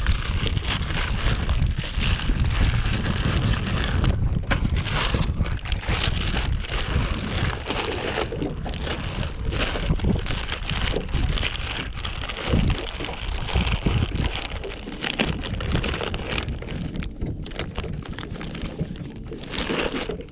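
Strong wind buffeting the microphone: a continuous gusty rush, heaviest in the low end, with crackling peaks throughout.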